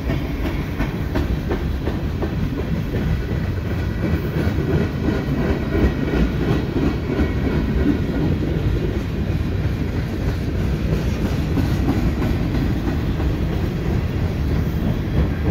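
Cars of a mixed freight train (covered hoppers, tank cars and boxcars) rolling steadily past, their steel wheels running on the rails with a continuous rumble and clacking.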